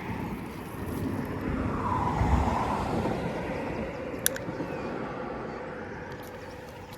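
A car passing by, its road noise swelling to a peak about two seconds in and then fading away. A short sharp click comes a little after four seconds.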